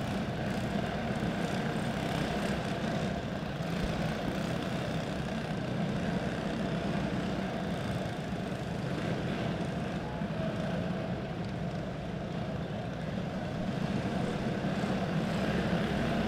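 Several flat karts' single-cylinder four-stroke OHV clone engines running slowly under a caution, giving a steady, even drone.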